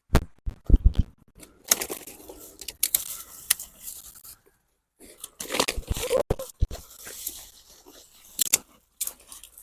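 Soil and dry potato plants rustling, scraping and crunching as they are handled while potatoes are dug, with irregular sharp clicks and knocks. The audio drops out to dead silence a few times.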